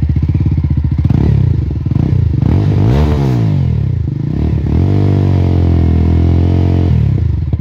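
Jawa 42 2.1 motorcycle's single-cylinder engine, freshly started and running through aftermarket silencers. It idles, is blipped a few times with one rev rising and falling about three seconds in, then is held at higher revs for about two seconds before dropping back to idle.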